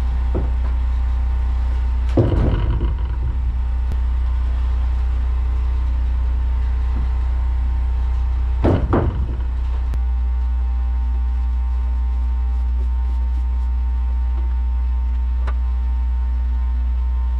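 Portable band sawmill's engine running steadily at idle, a constant low hum. Twice, about two seconds in and again about nine seconds in, there is a brief loud wooden clatter as boards are handled on the mill bed.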